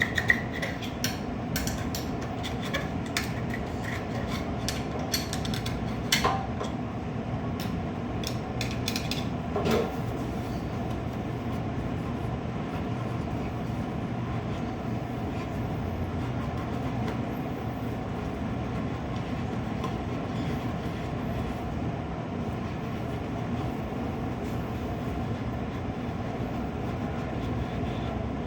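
Small metal parts and tools clinking and clicking for the first ten seconds or so, over a steady low mechanical hum that goes on throughout.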